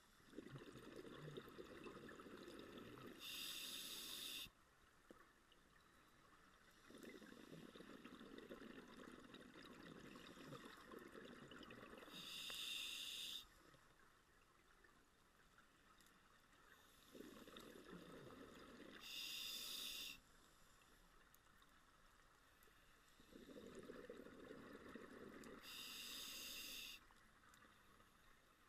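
Faint scuba breathing through a regulator underwater: four slow breath cycles six to seven seconds apart, each a few seconds of rushing bubble noise ending in a louder hiss of about a second.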